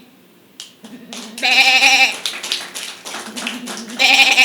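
A person imitating a sheep with their voice: two quavering bleats, one about a second and a half in and another near the end.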